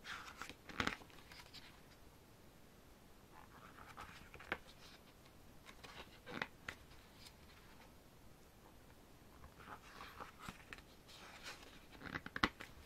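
Pages of a glossy photobook being turned by hand: short, soft paper rustles and slides with a few sharp taps, coming in little clusters about a second in, around four and six seconds, and again near the end.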